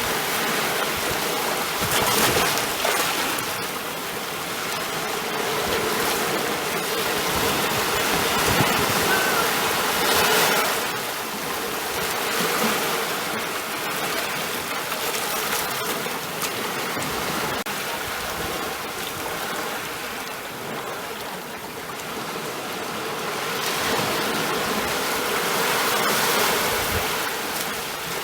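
Ocean waves breaking and washing in, a steady rush of surf that swells and eases in slow surges, loudest about 2 s in, around 10 s, and near the end.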